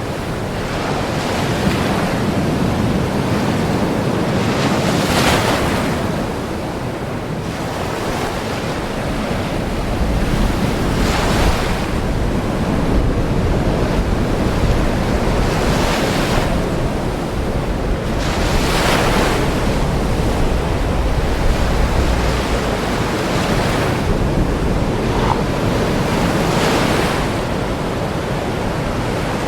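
Ocean waves breaking and washing on a shore, a continuous surf wash with separate waves cresting every few seconds, and a deep rumble of heavy surf underneath.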